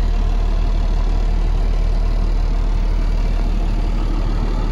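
2012 Ford F-750's 6.7-litre six-cylinder Cummins diesel idling steadily, heard from inside the cab.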